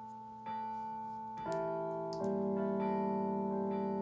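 Schulmerich Campanile Mark III digital carillon sounding its swinging-bells effect: several sampled bells struck one after another, each ringing on with a long decay. Strikes come about half a second and a second and a half in, then more from about two seconds that pile into a dense, overlapping peal.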